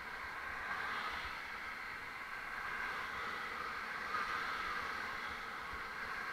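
Steady road noise of car traffic passing alongside a moving bicycle, with wind rumbling on the microphone.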